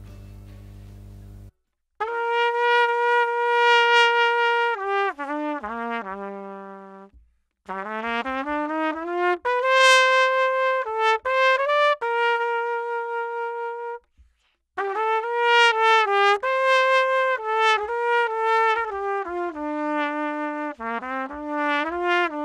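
Solo trumpet playing a melody in three phrases with short breaks between them, starting about two seconds in after a faint low hum. It is a raw, unprocessed recording made through a Superlux PRA 383 clip-on condenser microphone mounted on the trumpet.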